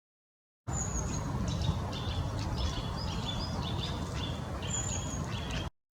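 Small birds chirping, with many short, high notes and a few thin whistles over a low outdoor rumble. The clip starts abruptly under a second in and cuts off near the end.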